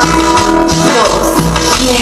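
Loud Latin dance music played over a sonidero sound system, with steady deep bass and sustained melodic notes.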